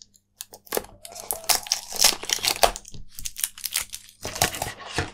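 White cardboard earphone box being slid open and its cardboard insert pulled out: a quick run of cardboard rustling, scraping and crinkling with small clicks, pausing briefly about four seconds in.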